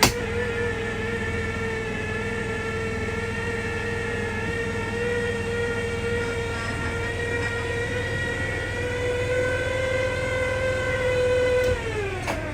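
Electric lift motor of a motorhome's powered bed, switched on with a click and whining steadily as it raises the bed. Its pitch rises a little late on, then falls away as the motor shuts off near the end.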